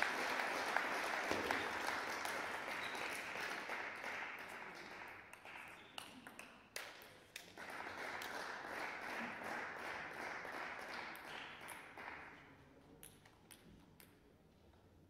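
Applause in a sports hall that breaks off briefly about six seconds in, resumes, and fades out after about twelve seconds. Scattered sharp clicks of a table tennis ball bouncing run through it and stand out once the clapping fades.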